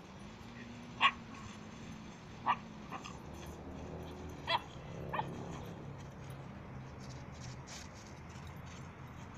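A dog giving a few short, high-pitched yaps, a second or more apart, in the first half, during play with another dog.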